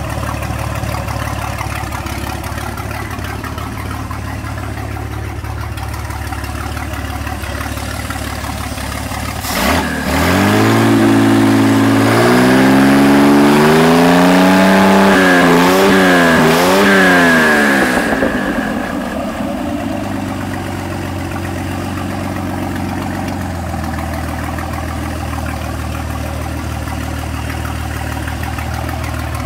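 Carbureted marine inboard engine on a test stand, idling steadily, then revved by hand at the throttle linkage about ten seconds in. The pitch climbs, is held high with a few quick dips, and falls back to idle after about eight seconds. There is a sharp click just before the revving.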